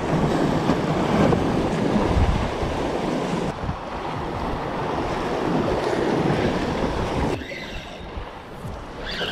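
Sea waves washing against the rocks of a jetty, with wind buffeting the microphone. The noise drops abruptly about three-quarters of the way through.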